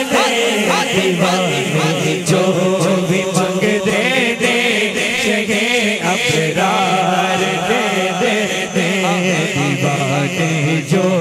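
Male voices chanting a Punjabi naat in devotional style, with wavering, ornamented melodic lines over a steady low held drone that shifts pitch about halfway through.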